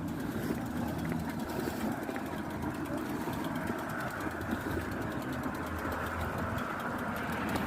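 A motor vehicle's engine running steadily: an even low hum with a haze of road noise over it.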